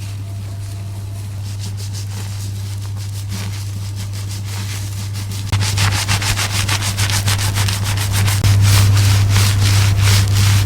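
Fingers scratching and scrubbing hair and scalp close to the microphone: a rhythmic rasping that gets much louder about halfway through, over a steady low hum.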